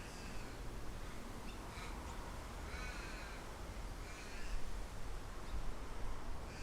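A bird calling repeatedly, a call every second or so with arched, pitched notes, over a steady low rumble of wind on the microphone.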